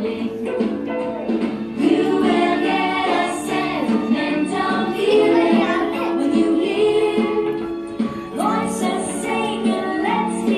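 Song playing, with a group of voices singing over the music.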